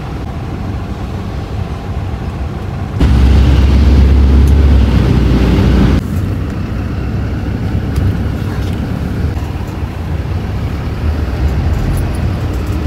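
Interior noise of a minibus: steady low engine and road rumble. A much louder, bassier stretch of rumble starts abruptly about three seconds in and stops just as abruptly about three seconds later.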